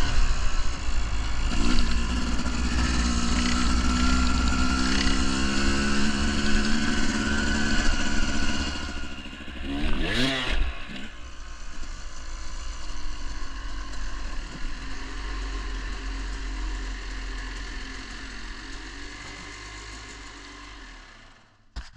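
Dirt bike engine riding and revving, rising and falling in pitch. It passes close by about ten seconds in, then fades steadily into the distance.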